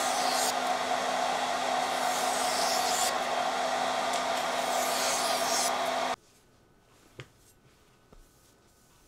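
A small motor running with a steady whirring noise and a constant low hum, cutting off abruptly about six seconds in.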